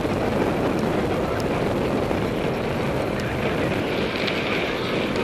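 Steady wind rush on the microphone of a camera riding on a cyclocross bike, mixed with tyre rumble and a few small rattles as the bike rolls over grass and onto a gravel road.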